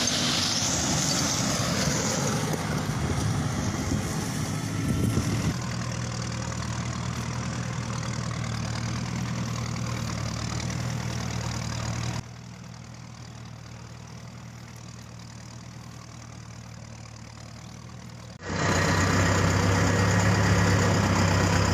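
Four-wheel-drive tractor's diesel engine running steadily. The sound changes abruptly about five seconds in, drops much quieter about twelve seconds in, and comes back louder about six seconds later.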